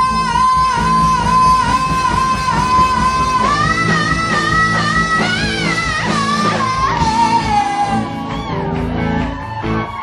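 A woman singing a solo vocal line of long, high held notes with vibrato, climbing higher about halfway through and dropping lower near the end, over a rock band with electric guitars.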